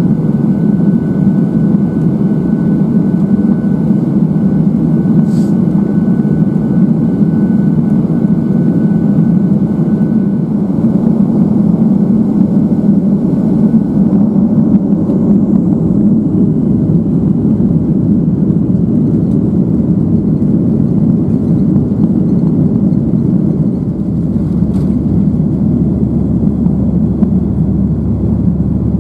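Cabin noise of a Boeing 737-800 on its takeoff roll: the CFM56 turbofans running at takeoff thrust over a steady deep rumble. A thin high tone fades out about a third of the way in.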